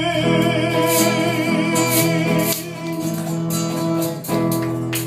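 Band ending a ballad: the singer holds a long final note with vibrato over guitars, bass and keyboard, then the drums and cymbals strike a run of closing hits.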